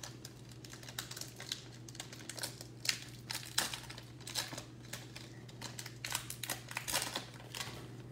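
Foil wrapper of a Bowman baseball card pack being torn open and crinkled by hand: a run of crisp crackles and rips, busiest about three seconds in and again near the end.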